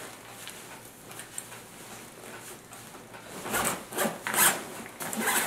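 Zipper on the green patrol bag of a USGI Modular Sleep System being pulled shut by hand. Faint fabric rubbing at first, then several short, quick zipping strokes over the last two seconds.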